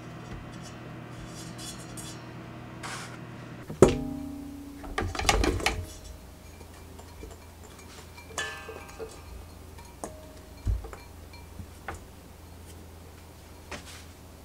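A steady motor hum, typical of a stand mixer, cuts off with a sharp knock about four seconds in. A stainless steel mixing bowl then clanks and rings several times while chopped onion is tipped onto the dough inside it, with lighter taps and clicks near the end.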